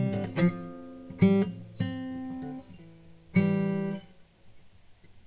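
Background guitar music: a few separate plucked notes and chords, each ringing and dying away, with the last one fading out about four seconds in.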